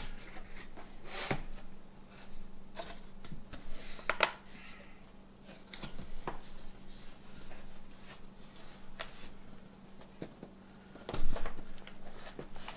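A box and its packing being opened and handled: scattered rustles, scrapes and light clicks, with a louder knock about eleven seconds in. A faint steady hum sits underneath.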